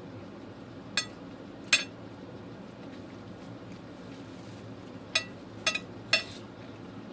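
Cutlery clinking against a plate during a meal: five short, sharp clinks, two about a second in and three more near the end, over a steady low background hum.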